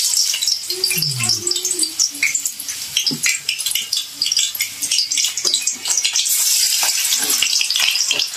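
Cassava slices frying in hot oil in a wok: a steady sizzle thick with tiny crackles, growing denser about six seconds in.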